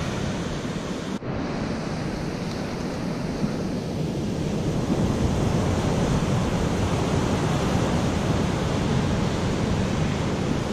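Rough ocean surf breaking and washing onto a sandy beach, a steady rushing noise with a brief dropout about a second in.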